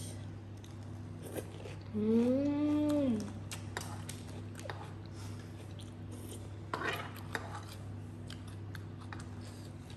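A person chewing the last bite of seafood, with a hummed 'mmm' about two seconds in that rises and then falls in pitch. A metal spoon then scrapes and clicks against the table's covered surface, gathering up leftover sauce, over a steady low hum.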